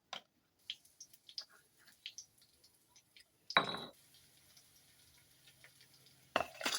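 Kitchen pots and utensils being handled: scattered light clicks and clinks, a louder clank about three and a half seconds in, and another clatter near the end. A faint steady hum with a high hiss runs after the first clank.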